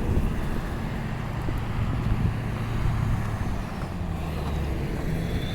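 Street traffic: a motor vehicle engine running with a steady low hum.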